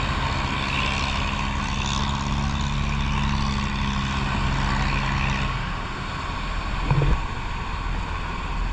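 Boat engine running with a steady hum over a constant rush of noise; the hum stops abruptly about five and a half seconds in, and a single thump follows near seven seconds.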